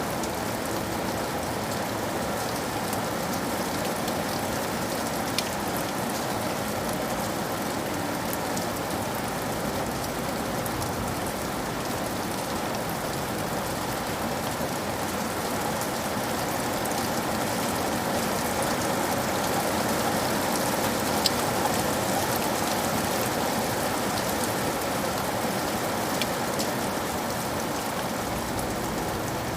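Steady rain falling on a surface, a dense even hiss with scattered sharp drop ticks, swelling slightly in the middle.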